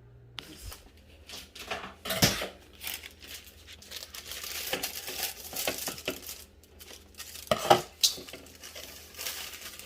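Kitchen clatter: dishes and utensils knocking and clinking, with several sharp knocks (the loudest about two seconds in and near the end) and a stretch of rustling in between.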